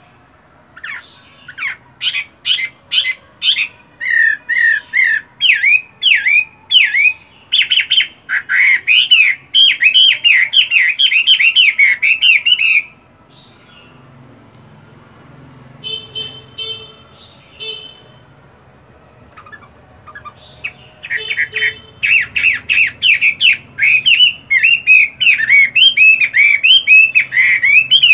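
A caged Chinese hwamei (melodious laughing thrush) singing loud, rapid runs of repeated whistled notes that swoop in pitch. It sings two long bouts with a pause of several seconds between them.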